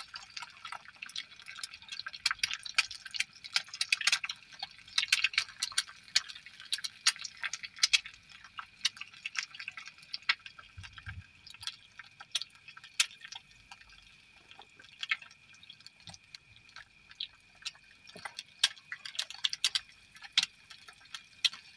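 Egg frying in a little oil in a small non-stick pan on a portable gas stove: hot oil sizzling with irregular crackling and spitting pops around the egg white.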